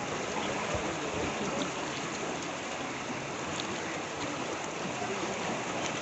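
Steady hiss of water, with a few faint ticks.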